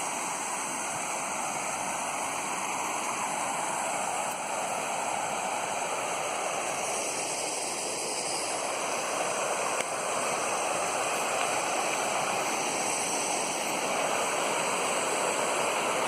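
Rushing water running steadily, an even, unbroken hiss.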